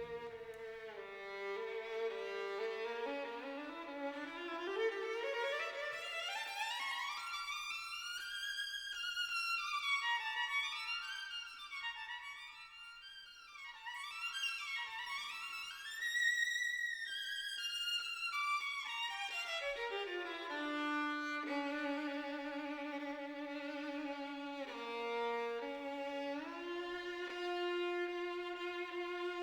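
Background music: a single melody line that climbs high and winds around in the middle, then settles into long held lower notes near the end.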